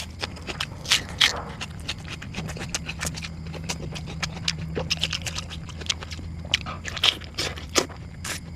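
A person eating close to the microphone: crunchy bites and chewing, with many short, irregular crackles and clicks.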